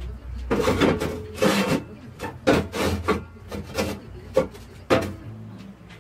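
Bent sheet-steel sections sliding and scraping on a steel workbench as they are pushed into line: a string of short rasping scrapes and clanks, ending in two sharper knocks about four and a half and five seconds in.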